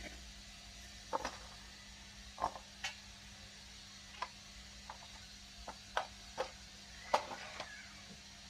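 Scattered light clicks and knocks of plastic and metal printer parts being handled and taken apart, about a dozen at irregular intervals, over a steady low hum.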